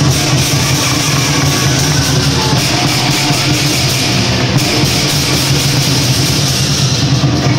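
Lion dance percussion band playing loudly: a big drum with clashing cymbals and gong.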